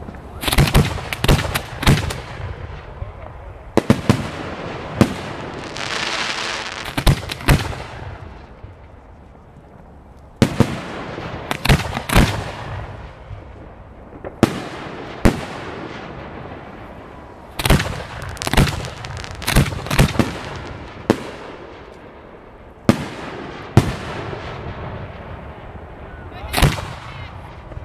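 Aerial firework shells bursting in clusters of sharp bangs, each trailing off in an echo, with a longer hiss about six seconds in.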